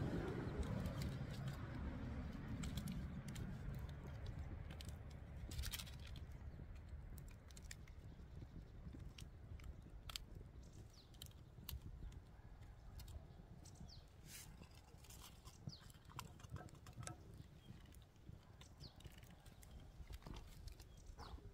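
Wood campfire crackling, with scattered sharp pops, over a low rumble that fades during the first several seconds.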